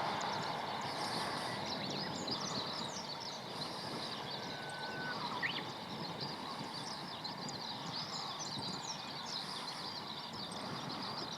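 Many small birds chirping over a steady outdoor background hum.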